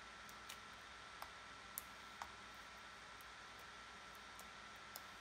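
Glitter slime being poked and squished with fingertips, giving about five faint, soft clicks and pops, spread out, over a low hiss.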